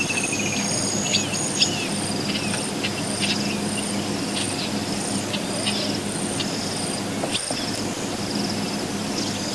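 Chorus of African bushveld insects: a high, sharp pulse repeats about twice a second over other repeating high trills. Brief bird chirps and short whistles are scattered through it, above a faint steady low hum.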